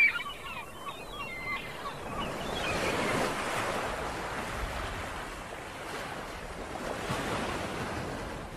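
Small birds chirping in quick repeated notes for the first second or so, then a steady rushing noise with no speech or music.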